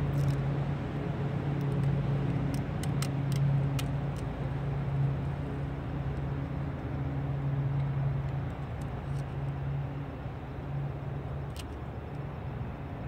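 Steady low mechanical hum, like a motor running, with a few faint sharp clicks.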